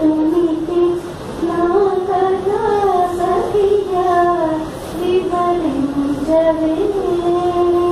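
A woman's voice singing solo, a slow melody with long held notes and ornamented turns, ending on a long sustained note.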